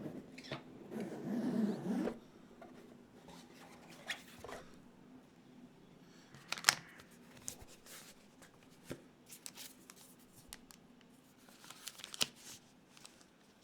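Custom keyboard parts being handled during assembly: a rustle of packaging in the first two seconds, then scattered small clicks and taps, the sharpest about seven seconds in.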